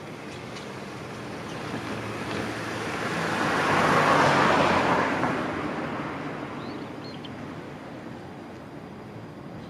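A vehicle passing by, its noise swelling to a peak about four seconds in and then fading away.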